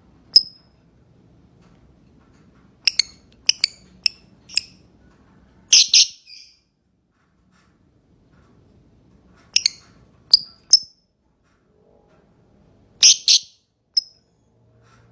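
Lovebird giving short, shrill chirps, singly and in quick pairs or clusters, about a dozen in all with pauses of a second or more between them.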